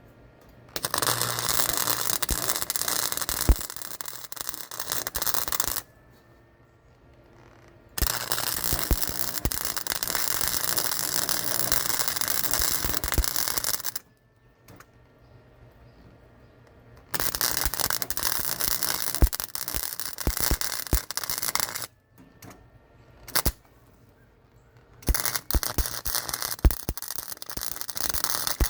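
Welding arc crackling in four runs of about five seconds each, each starting and stopping abruptly as the welder lays short tack welds or beads on steel.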